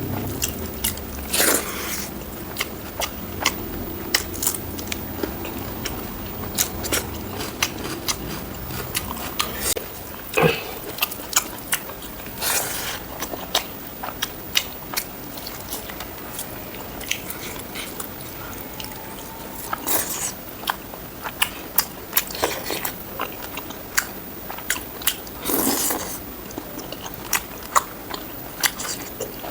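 Close-miked mouth sounds of someone eating a meal of pork curry with rice: steady chewing full of short sharp clicks and smacks, with a few louder crunchy bites spread through.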